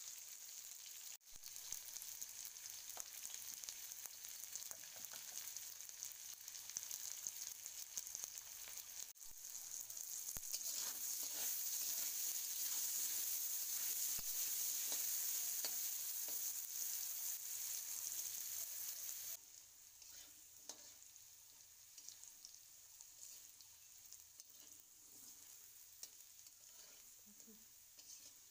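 Potato wedges sizzling as they fry in oil in a metal wok, with a metal spatula now and then scraping and turning them. The sizzle swells louder in the middle, then drops suddenly to a quieter sizzle about two-thirds of the way in.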